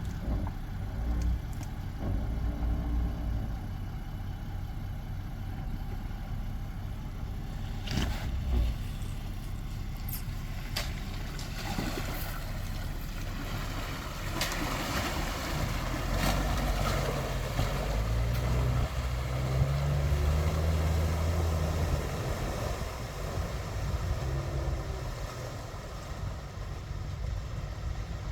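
Land Rover engine driving off-road, pulling harder and rising in pitch from about halfway through, then easing off near the end. A few sharp knocks come about a third of the way in.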